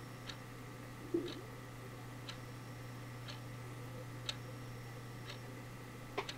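A clock ticking evenly, about once a second, over a steady low hum. There is a short, louder dull knock about a second in.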